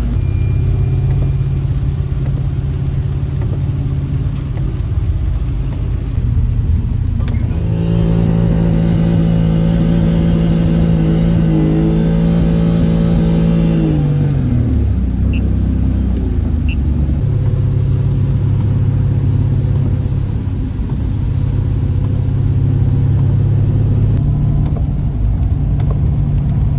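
1994 BMW E34 530i's V8 engine running under way. About seven seconds in it rises to a higher, louder note, holds there steadily for about six seconds, then drops back down and runs on steadily.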